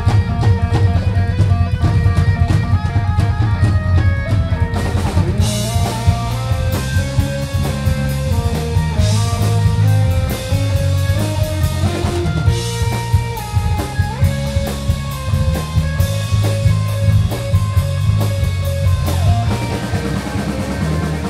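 Live rock band playing loud: an electric guitar plays a melodic lead line over a drum kit and bass guitar.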